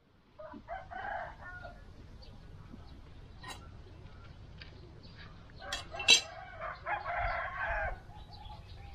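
Rooster crowing, a short call about a second in and a longer one lasting about a second near the end. A couple of sharp knocks come just before the second crow and are the loudest sound.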